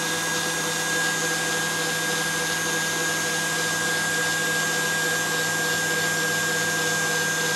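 Stand mixer motor running steadily at high speed with a constant whine, whipping egg whites and apple purée into marshmallow as the hot agar-sugar syrup is poured in.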